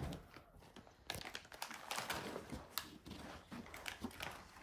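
Quiet, irregular clicking and rustling as dog treats are handled and handed out.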